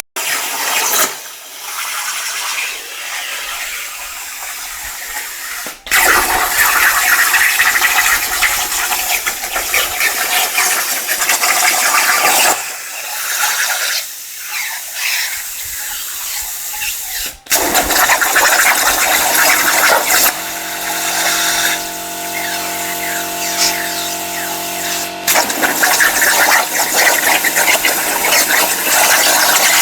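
CNC plasma cutter's torch hissing loudly as it cuts steel, cutting out briefly a few times between cuts. A steady hum with several tones joins in for a few seconds past the middle.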